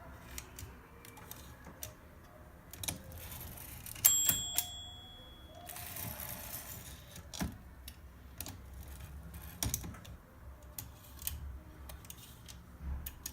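Olympia SM3 portable typewriter clicking irregularly, with single key and mechanism clicks. About four seconds in comes one bright bell ring that dies away over a second or so, followed by a short rasping slide.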